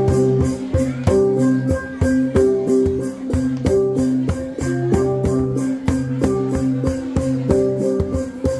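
Central Highlands cồng chiêng gong ensemble playing: several tuned bronze gongs struck in a fast, steady interlocking rhythm, their notes ringing on and overlapping, with a barrel drum beating along.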